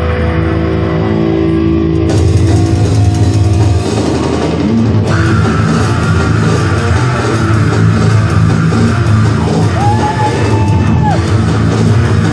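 Live heavy metal band playing at full volume: distorted electric guitars, bass and drum kit. The sound gets brighter and fuller about two seconds in and again about five seconds in, with a held high note near the end.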